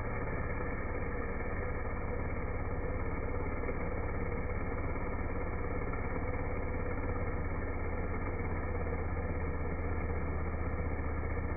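Stihl 023 two-stroke chainsaw with a 3/8 Picco chain cutting through a log, slowed down to slow motion so it sounds like a low, steady drone with a fast even pulse.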